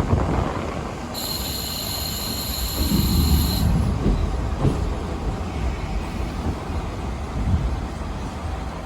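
KiHa 40 diesel railcar running, a steady low rumble of engine and wheels on the rails. About a second in, a high steady squeal starts and lasts about two and a half seconds before cutting off.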